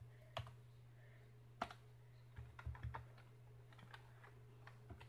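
A few faint, scattered computer keyboard key presses as a code is typed in, over a low steady hum.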